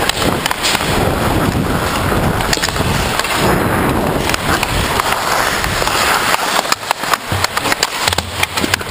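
Ice hockey skates scraping and carving the ice, with wind rushing over a worn camera's microphone as the player skates. In the last few seconds, a quick run of sharp clacks from hockey sticks hitting each other and the ice along the boards.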